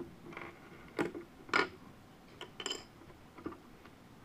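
Plastic Lego pieces being handled and set down, making about half a dozen sharp clicks and taps against a wooden tabletop.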